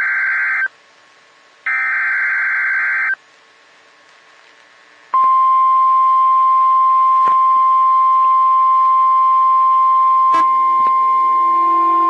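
Emergency Alert System SAME header: two screeching digital data bursts about a second apart. About five seconds in comes the steady single-pitch NOAA Weather Radio 1050 Hz warning alarm tone, which signals that a warning message follows. Near the end there is a click, and a lower hum joins under the tone.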